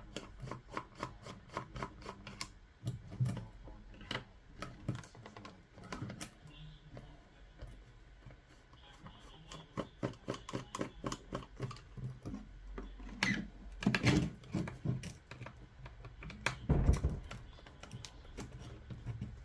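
Quick, irregular small clicks and taps of a screwdriver and the plastic parts of a portable Bluetooth speaker being handled during disassembly, with a few louder knocks about two-thirds of the way through and near the end.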